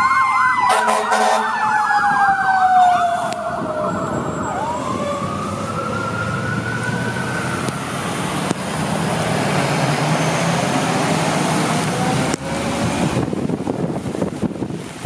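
Fire truck sirens: a fast yelp over a slow falling wail for the first few seconds, then a single wail that rises and falls. After the wail, a steady rush of the trucks' engines and tyres on the wet road, which drops off suddenly near the end, leaving a fainter hiss of wet-road traffic.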